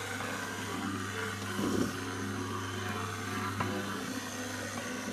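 Small electric boilie-dough mixer running steadily, its motor humming as the six mixing fingers turn egg-and-base-mix dough in a stainless pot. A dull knock comes a little under two seconds in, and a sharp click comes later.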